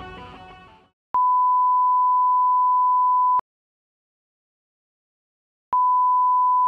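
A steady, high, pure test-tone beep, the kind played with TV colour bars, sounding twice: about two seconds long starting about a second in, then again near the end, with silence between. Guitar music fades out at the very start.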